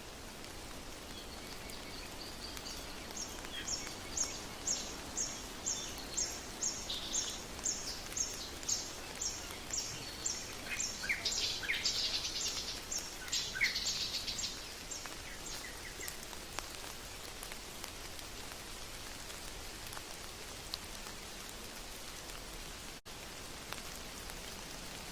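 Steady rain with a bird calling over it: a long run of high, evenly spaced notes, about two a second, joined by other chirps before it stops about two-thirds of the way through. Only the rain goes on after that.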